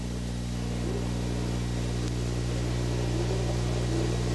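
Formula One race cars' engines heard at a distance, their pitch rising and falling as they run through the corner, under a steady low hum and hiss from the old broadcast recording.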